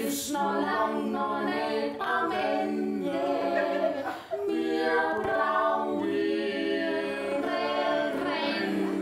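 Three voices, two women and a man, sing a song together in harmony, holding long notes over one another. The singing breaks off briefly about four seconds in, then goes on.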